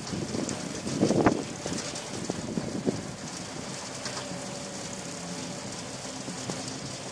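Massey Ferguson 275's four-cylinder diesel engine running steadily under field work at a distance, mixed with wind on the microphone, with a louder gust about a second in.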